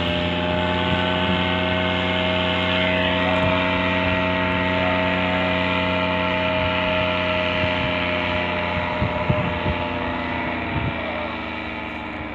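Paramotor's engine and propeller running steadily overhead, a constant engine drone that fades a little near the end. A few low knocks come about nine seconds in.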